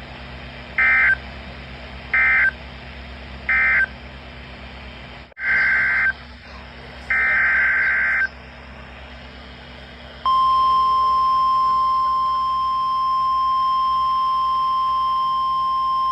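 NOAA Weather Radio EAS data bursts (SAME signal): three short, evenly spaced buzzy digital bursts, then after a break two more. About ten seconds in, the steady 1050 Hz Weather Radio warning alarm tone starts. It announces a new warning.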